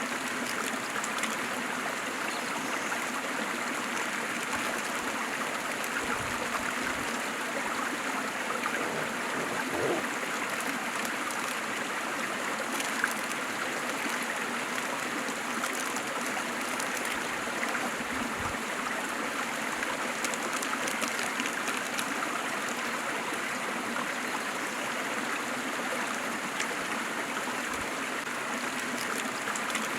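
Waterfall: a steady, even rush of falling and splashing water, with one short click a little before halfway.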